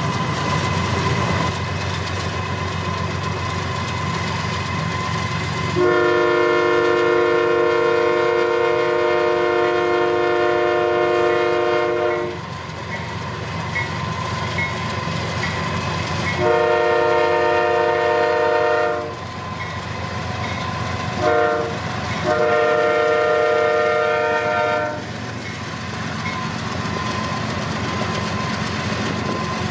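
CSX freight locomotive's multi-note air horn sounding the grade-crossing signal: long, long, short, long. Underneath runs the steady rumble of the moving train.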